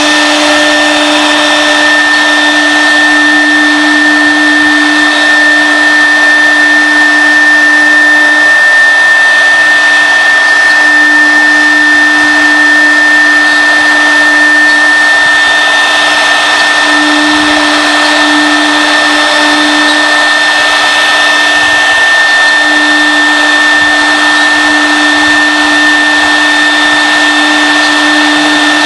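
CNC router's high-speed spindle running with a steady high whine as its cutter carves a pattern into a wood panel. A lower hum underneath drops out briefly a few times as the cut goes on.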